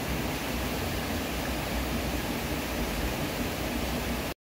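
Steady rushing noise with no clear events, heaviest in the low end, cutting off abruptly to dead silence near the end.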